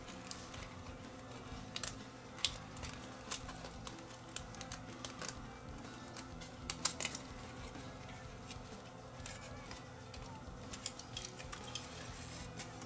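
Scattered light clicks and taps of small parts of a DAT deck's tape mechanism being handled during disassembly, irregular and spaced a fraction of a second to a second apart, over a steady low hum.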